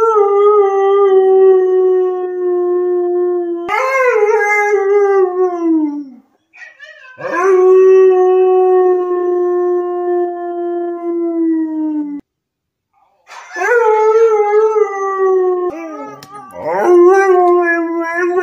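Siberian husky howling in a series of long, drawn-out howls, each held on a fairly steady pitch and dropping away at the end, with short pauses between them. The last howl rises and wavers.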